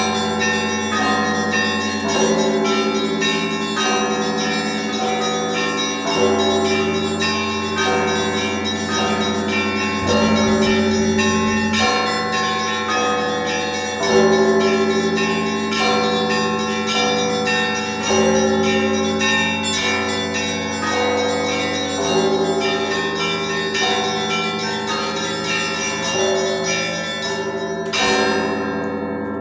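Russian bell ringing (zvon) on a set of church bells in a repeating pattern of seven quarter beats. A heavy stroke comes about every two seconds over a running pattern of smaller bells. Near the end a last stroke sounds and the bells ring out and fade.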